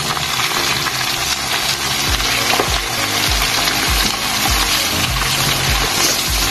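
Chicken pieces deep-frying in bubbling oil in a frying pan: a steady, dense sizzle and crackle. Background music with a low, regular beat plays underneath.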